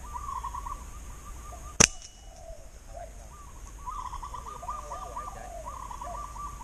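A slingshot shot: one sharp snap of the released rubber bands about two seconds in, over birds calling repeatedly in the background.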